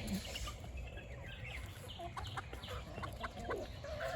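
A flock of young chickens clucking softly in many short, scattered calls.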